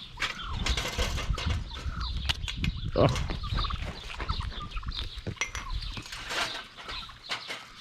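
Goats crowding in to be hand-fed cookies: a busy jumble of clicks, knocks and handling noise, with short clucking calls from farmyard fowl mixed in.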